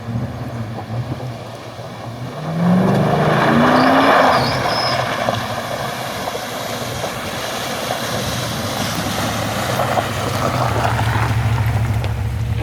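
Dodge Durango's engine revving up, rising in pitch about two and a half seconds in, while driving through river water, with loud splashing and rushing water; the engine then runs on steadily through the water.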